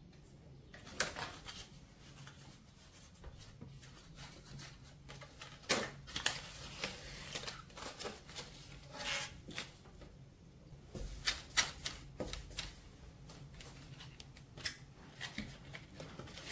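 Self-adhesive sealing tape being unrolled and its paper backing peeled off, with irregular crinkling, rustling and crackling as the backing and tape are handled and pressed into place.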